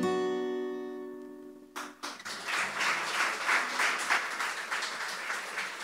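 An acoustic guitar's final chord ringing out and fading; about two seconds in, the audience breaks into applause that carries on.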